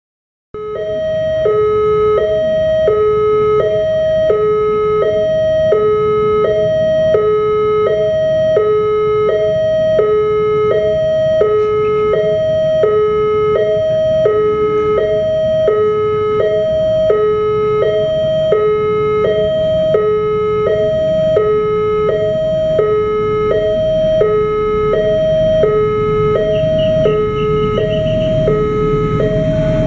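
Electronic warning alarm of an Indonesian railway level crossing, sounding steadily as an evenly alternating high–low two-tone, about one pair a second: the signal that a train is approaching and the barriers are closing. A low rumble grows near the end.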